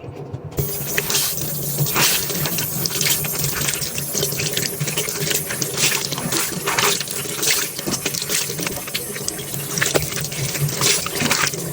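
Haier washing machine taking in water during its drum self-clean cycle: a steady gushing rush with splashing into the drum that starts about half a second in, over a low steady hum.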